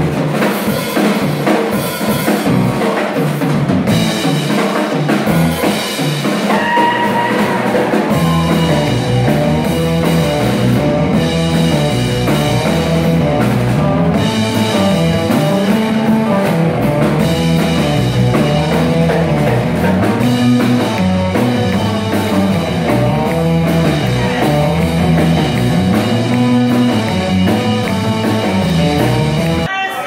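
Live band playing an instrumental passage on Telecaster-style electric guitar, drum kit and electric bass guitar, with no vocals. A steady walking bass line comes in about eight seconds in.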